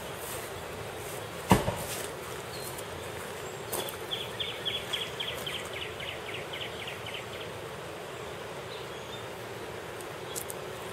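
Steady outdoor background noise with a rapid run of high chirps, about four or five a second, from an insect between roughly four and seven seconds in. A single sharp thump comes about a second and a half in.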